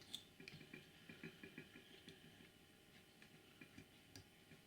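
Faint small clicks and taps of a model locomotive's DCC decoder plug being handled and pushed onto its pin socket, with a quick run of them about a second in and a sharper tick near the end.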